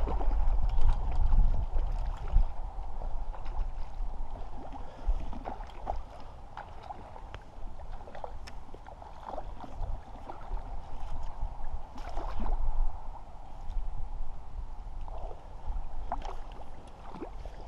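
Hooked trout splashing at the water's surface as it is played in close and netted. Wind rumbles on the microphone, strongest in the first couple of seconds.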